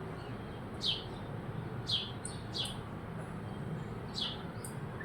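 Birds chirping: short, high chirps that each drop quickly in pitch, about six of them at irregular intervals, two pairs coming close together.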